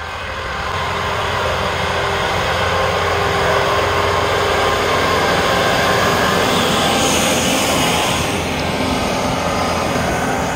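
Kubota L6060 tractor's diesel engine running with its snowblower working, a steady loud drone that grows louder as the machine comes close.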